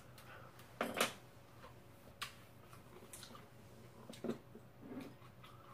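Scattered clicks and knocks of chopsticks and spoons against bowls while eating, about five separate strikes, the loudest about a second in.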